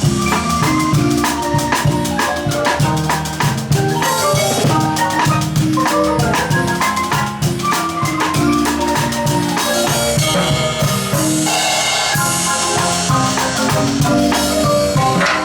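Guatemalan marimba ensemble playing a lively piece, rapid mallet notes over a steady drum beat.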